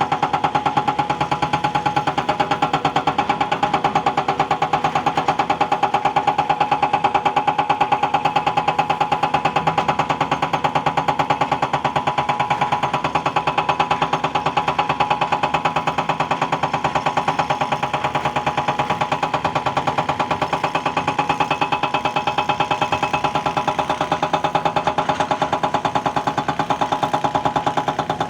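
Diesel engine of a JCB excavating machine running steadily at an even speed, with a rapid regular firing pulse.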